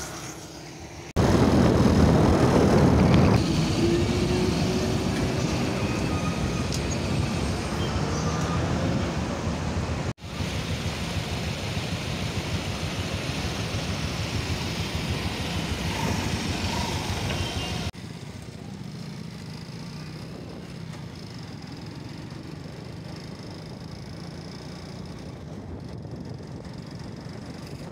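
Road traffic on a busy street: motorcycle, truck and other vehicle engines and tyre noise, in several short clips that cut off abruptly. The loudest passage comes in the first few seconds. The last third is a quieter, steady noise heard from the back of a moving motorcycle.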